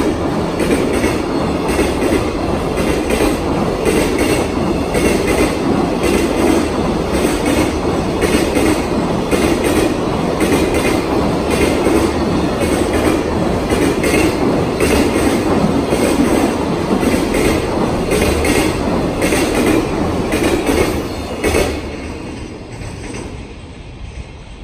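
Container flatcars of a long freight train rolling past at speed, their wheels clattering rhythmically over the rail joints with a heavy rumble. About 21 seconds in, the last wagon passes and the noise falls away.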